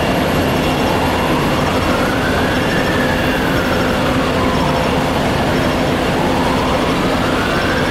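Emergency vehicle siren wailing, rising and falling slowly about every five seconds, over a steady loud rumble.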